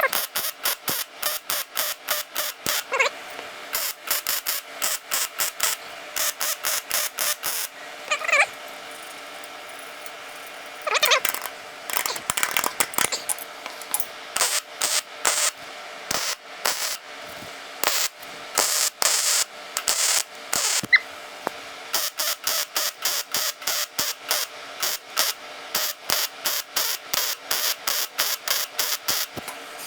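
A hand tool worked in quick repeated strokes, about four a second, in runs with short pauses, with a few faint squeaks between.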